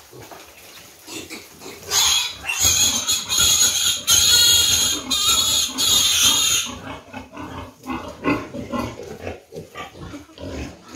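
A piglet squealing loudly without a break while it is caught and held for a dewormer dose. The squeal starts suddenly about two seconds in and stops after about five seconds.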